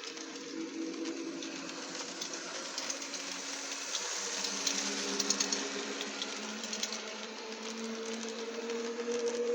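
Electric locomotive running, its nose-suspended traction motors and gearing giving a steady whine of a few tones that shift slightly in pitch, over the even rushing hiss of the cooling blowers, with faint clicks around the middle.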